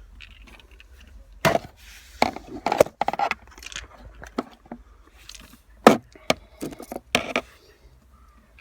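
Scattered knocks and clicks of hands and tools working the plastic roof console up into place, the loudest about a second and a half in, near three seconds and near six seconds.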